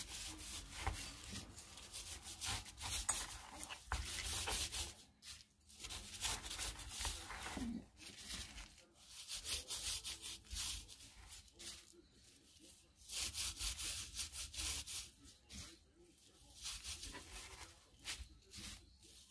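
Hands rubbing seasoning into a slab of raw pork belly to marinate it: an irregular rubbing noise of fingers working over the meat that comes and goes, with short pauses.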